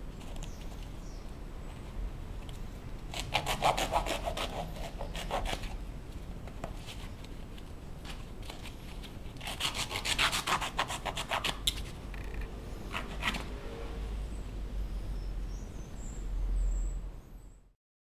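A blade sawing through the canvas upper of a Vans sneaker, in two spells of quick back-and-forth strokes, about three seconds and about ten seconds in, with a few weaker strokes after. There is a low rumble near the end before the sound cuts off.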